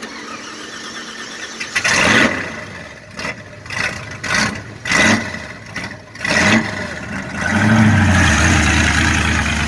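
Off-road truck engine revving in several short bursts, then held at high revs near the end, as the truck spins its tires digging into a dirt bank.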